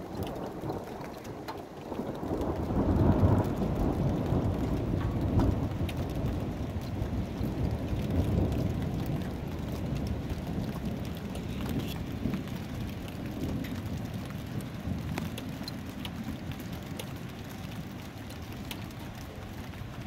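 A long roll of thunder that swells about two seconds in, is loudest shortly after, and slowly fades over the next ten seconds or so, over steady falling rain.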